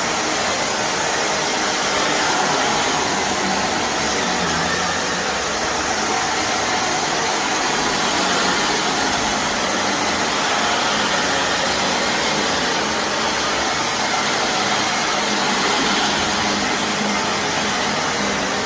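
Shark vacuum cleaner running steadily while it is pushed over a carpet packed with dry soil and debris, the motor and airflow a constant rushing hiss with the grit being sucked up.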